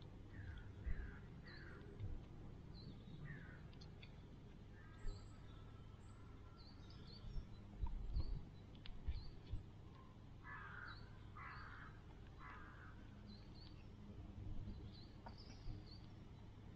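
Birds calling outdoors: scattered short chirps, and a run of three harsh, crow-like calls about ten to twelve seconds in.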